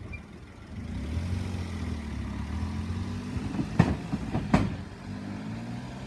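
Local train running over a level crossing: a steady low rumble, with two sharp wheel clacks over the rail joints about a second apart midway.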